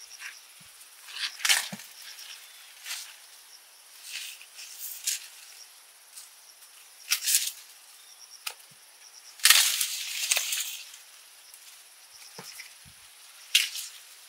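Corn stalks and leaves rustling and crackling as ears of corn are picked by hand: a string of short, sharp rustles and snaps, with one longer rustle about two thirds of the way through.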